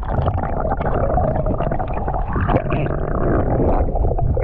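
Loud, muffled rushing and rumbling of river water heard through a camera held underwater, dull and without any high end, with small scratchy ticks through it.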